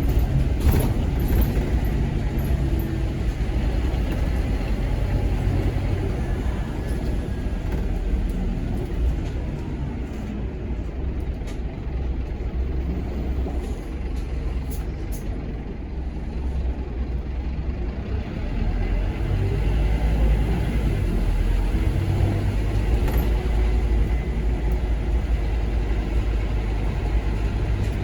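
Scania K230UB Omnilink bus's diesel engine and ZF Ecomat automatic gearbox under way. The engine eases off in the middle, then pulls harder again about two-thirds of the way through.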